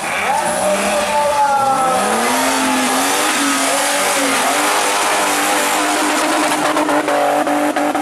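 Off-road 4x4 engine revving hard, its pitch rising and falling several times, then held high for a few seconds, with a run of sharp clicks near the end.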